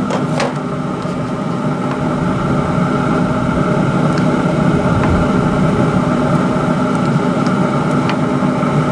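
Steady whirring hum of a running Pit Boss Lexington pellet grill's fan, with a few light clicks scattered through it.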